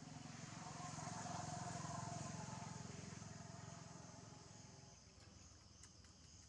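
Faint hum of a passing motor vehicle's engine, swelling over the first couple of seconds and then fading away.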